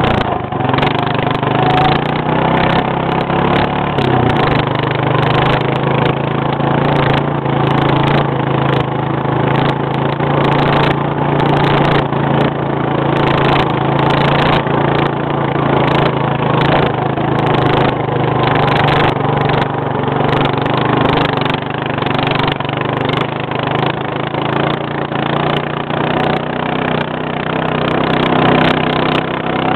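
A small engine running steadily, its pitch shifting slightly about four seconds in and then holding even.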